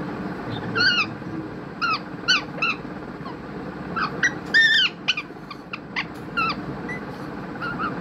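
Pet green parakeet calling: a string of about a dozen short, high squawks that slide downward in pitch, with the longest and loudest about four and a half seconds in.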